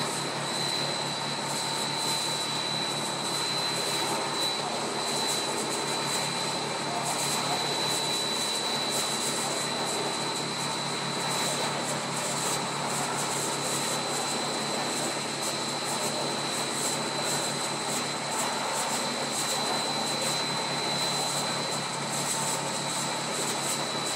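Monolayer blown film extrusion line running: a steady machine drone with a high, even whine over a low hum.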